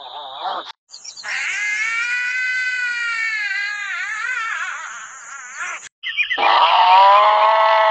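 An angry cat yowling in long drawn-out calls whose pitch wavers and arches. One call lasts about four and a half seconds and cuts off abruptly; another starts near the end.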